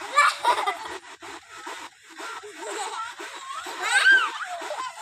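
Children laughing and giggling in short bursts, with a louder high-pitched squeal of laughter about four seconds in.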